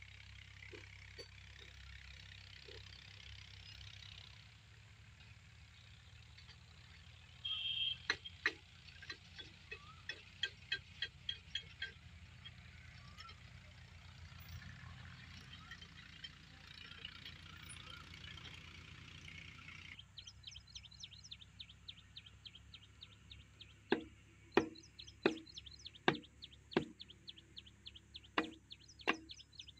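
A series of sharp knocks, two or three a second, about eight seconds in, then after a pause a slower run of louder knocks with a short ring near the end, over a faint low hum.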